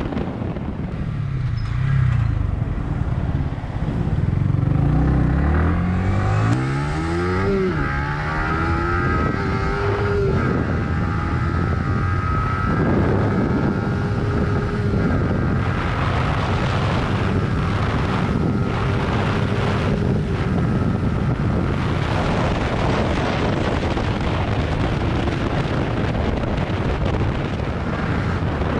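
Yamaha YZF-R15 single-cylinder sport bike accelerating, its engine pitch climbing and dropping back several times in the first eight seconds or so as it shifts up through the gears, then cruising at a steadier note. Wind rushes over the helmet microphone throughout.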